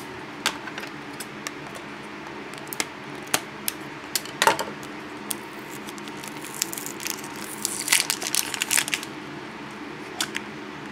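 A Zelf surprise egg's plastic capsule being handled and opened: scattered clicks and taps, then a spell of crinkling from about six to nine seconds in.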